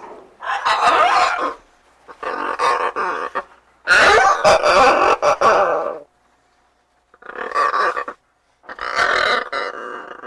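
Macaw parrot giving five harsh, raspy squawks with short pauses between them. The third squawk, about four seconds in, is the longest and loudest.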